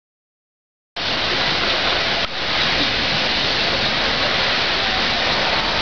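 Steady rushing of flowing water, like a stream or small waterfall, starting abruptly about a second in.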